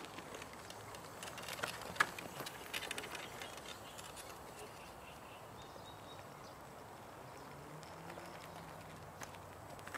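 Footsteps on a paved path, a run of light clicking steps that thins out after the first few seconds, over a faint steady outdoor background.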